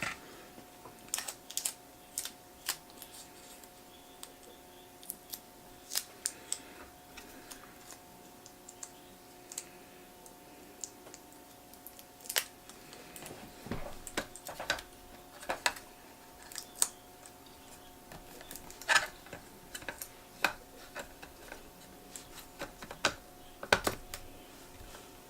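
Scattered light clicks and taps from hands working with tape and small parts on an opened laptop, over a faint steady hum.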